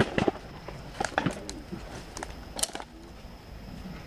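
Footsteps through dry leaf litter and undergrowth: irregular sharp cracks of twigs and crunching leaves, with rustling brush.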